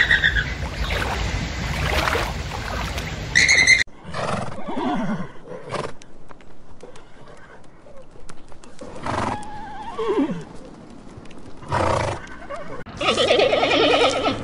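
Horses whinnying, several separate calls that fall in pitch. This follows a few stacked calls from flamingos at the start and comes before a loud bleating call near the end.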